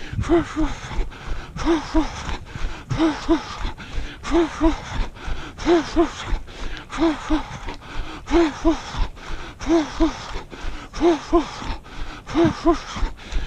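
A runner's heavy, rhythmic breathing while running, with a pair of short voiced puffs on the breath about every second and a half and breathy hiss between them.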